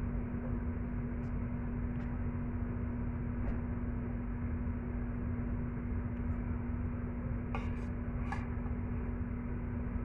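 A steady machine hum with one constant low tone runs throughout. About three-quarters of the way through come two short scrapes of a metal spoon as filling is pushed into a green capsicum.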